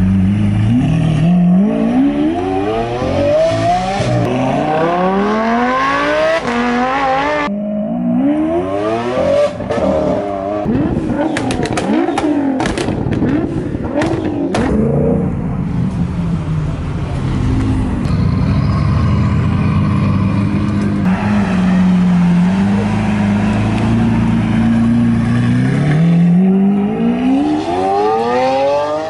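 Supercar engines accelerating hard, the exhaust note sweeping up through the revs again and again, from a Lamborghini Aventador's V12 at the start and again near the end. In the middle comes a run of sharp exhaust pops and bangs from a Nissan GT-R throwing flames from its exhaust, followed by a long steady engine drone.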